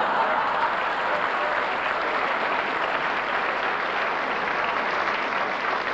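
Audience applauding and laughing: a steady, dense clapping.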